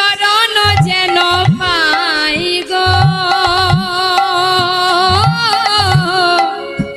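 Devotional kirtan music: a woman's voice holds long, wavering melismatic notes without clear words, over a khol-style drum whose low strokes come in pairs and glide upward in pitch. The held melody fades out a little before the end while the drumming goes on.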